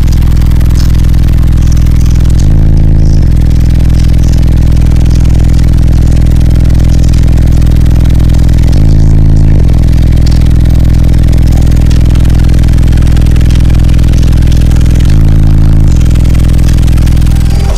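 Four Orion HCCA 15-inch subwoofers in a custom sixth-order bandpass enclosure playing bass music at extreme level, heard from inside the truck cab. Deep steady bass notes shift about every six seconds, and the sound overloads the microphone.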